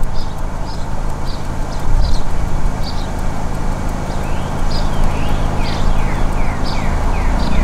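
Engine and road noise of a slowly moving car, heard from inside it, with a bird chirping repeatedly outside. About halfway through, a quick series of sliding bird notes joins in.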